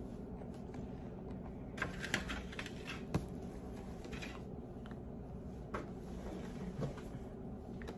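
A few scattered light clicks and taps from a knife and a cake tray being handled, over a low steady room hum.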